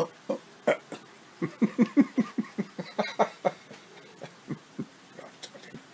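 A man laughing: a few short breathy sounds, then a quick run of rapid "ha-ha" pulses a second and a half in that trails off into smaller ones.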